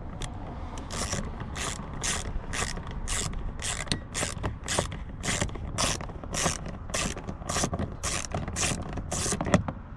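Socket ratchet on an extension with an H5 bit, swung back and forth to undo a door-panel bolt: the pawl clicks on each return stroke, a little under two strokes a second.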